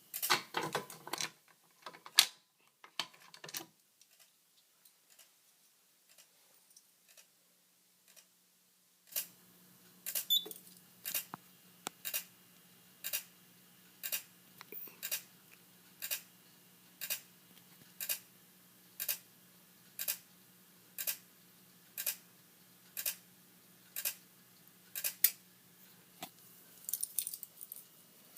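Simplex TrueAlert strobe ticking about once a second with each flash, over a faint steady hum, with the horn not sounding. A few handling clicks come at the start, and the ticking begins about nine seconds in.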